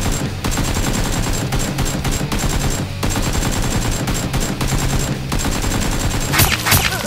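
Rapid, near-continuous automatic gunfire with a few short breaks, over steady background music.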